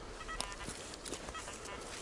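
XP Deus metal detector giving short, repeated pitched beeps, with a few sharp clicks, the loudest about half a second in.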